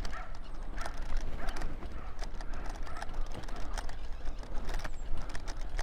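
A run of clopping steps, about two a second and slightly uneven, over a steady low rumble.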